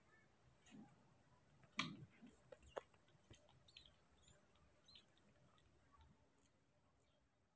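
Faint clicks and smacks of a baby macaque nibbling and chewing a piece of food held to its mouth, with a sharper click about two seconds in.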